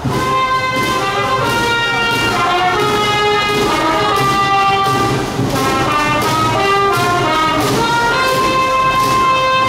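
Trumpet playing a cheering melody in held notes, with a long high note near the end, over a steady beat of large bass drums.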